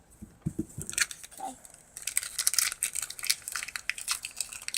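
Foil booster-pack wrapper crinkling as it is torn open: a few soft knocks, then from about two seconds in a dense run of sharp crackles.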